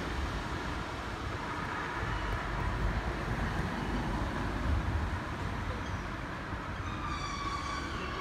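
A train at the station: a steady low rumble, joined near the end by a whine of several pitches that falls slightly.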